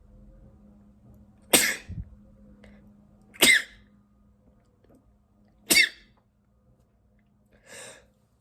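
A person sneezing three times, about two seconds apart, each sneeze short and sharp, with a fainter breathy sound near the end.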